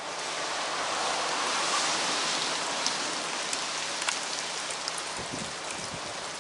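Steady hiss of light rain falling, with a few scattered drip ticks; it swells slightly in the first couple of seconds and then eases.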